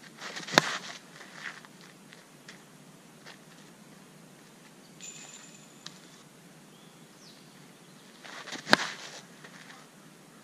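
Two sharp cracks of an Easton Bubba Club slowpitch softball bat hitting softballs off a batting tee, about eight seconds apart, each with a brief ring. Faint rustles and footsteps between them.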